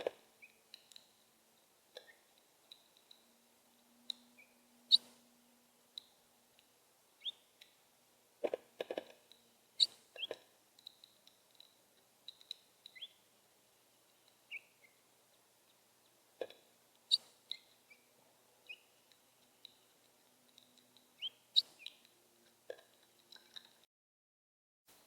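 Small birds giving short, falling chirps, scattered among sharp taps and clicks. The sound drops out briefly near the end.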